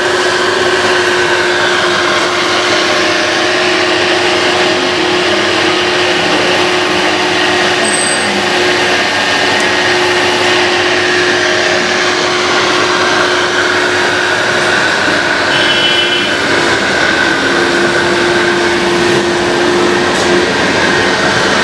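Radio-controlled model trucks and machines running: a steady electric motor and gear whine over a constant mechanical hum, with a brief higher chirp about two-thirds of the way through.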